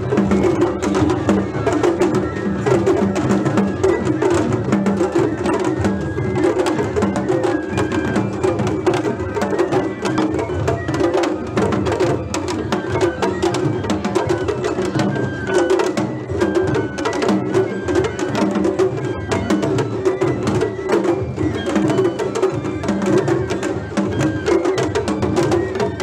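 Festival float music: taiko drums beaten in a brisk, unbroken rhythm with sharp clacking strikes.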